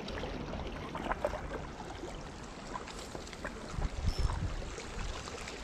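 Small waves lapping and trickling among shoreline rocks, over a low steady rumble.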